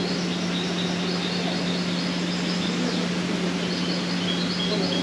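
Steady hiss with a constant low hum, like air-conditioning in an enclosed glasshouse, with small birds chirping in short, high, repeated notes throughout.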